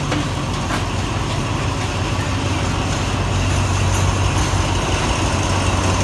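State Railway of Thailand diesel-electric locomotive running past, its engine a steady low drone that grows louder as it comes close.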